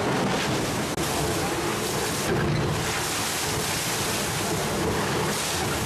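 Seawater breaking over and sluicing across the deck of an ocean racing yacht in heavy seas, with spray and wind: a dense, steady rush of water.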